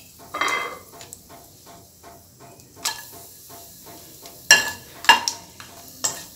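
Bay leaves, cardamom pods and cinnamon sticks sizzling and crackling in hot ghee and oil in a nonstick kadai. A metal spatula knocks against the pan several times in the second half, loudest twice about half a second apart.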